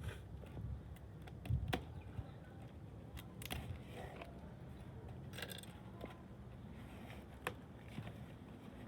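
Packaging being handled while unboxing: scattered faint clicks, taps and short rustles, the loudest about one and a half seconds in.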